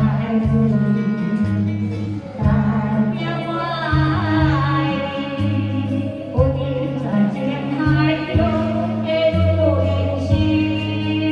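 A song: a singing voice with vibrato carries the melody over instrumental backing, with a bass line in held notes.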